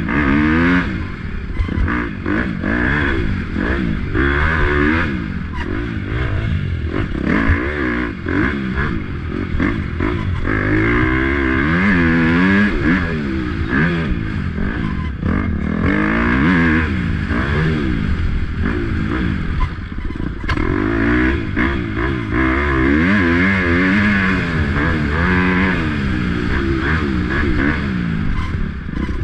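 Racing motorcycle engine revving hard and easing off over and over, its pitch climbing and dropping every second or two as the rider works the throttle and gears. Short clattering knocks are mixed in.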